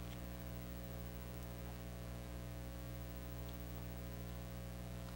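Steady electrical mains hum in the sound system, a low even drone with its overtones and nothing else prominent over it.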